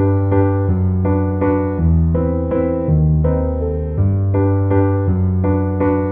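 Background piano music: evenly struck notes over a bass line that changes about once a second.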